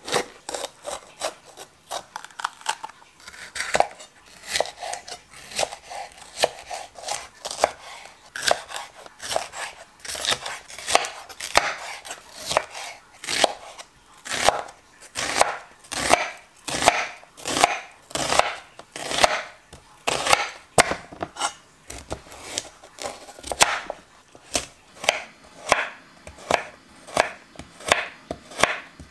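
Chef's knife slicing red bell pepper, onion and carrot on a wooden cutting board: a steady run of sharp knocks of the blade on the board, about two a second.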